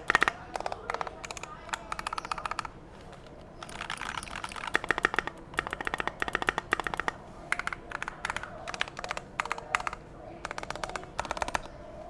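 Typing on a TOFU68 custom mechanical keyboard with lubed Gateron Yellow linear switches in a stainless steel plate: rapid runs of key presses with short pauses between them, stopping near the end.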